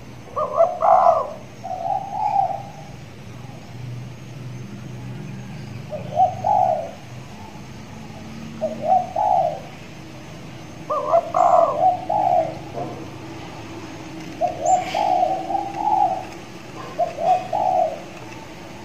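Spotted dove (tekukur) cooing: about seven short coo phrases in bouts a few seconds apart. This is a young trained bird that has begun to call freely.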